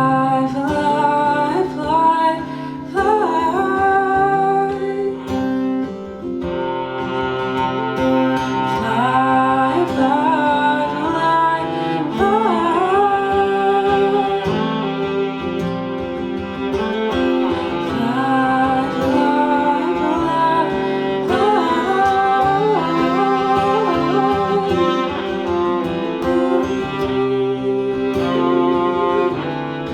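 Live acoustic music: acoustic guitar and cello playing together under a gliding, wavering melody line, with the accompaniment growing fuller about six seconds in.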